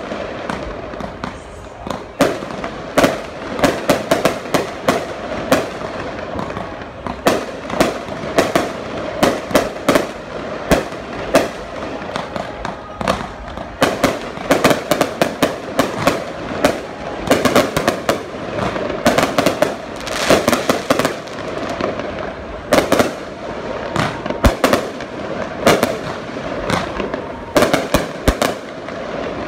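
Fireworks display: aerial shells bursting in quick succession, many sharp bangs a second, with crackling between them.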